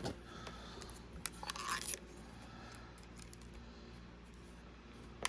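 Faint clicks and rattles of a speaker cable and its plug being handled and plugged into the Walkman, with a cluster of clicks between one and two seconds in and a single click near the end.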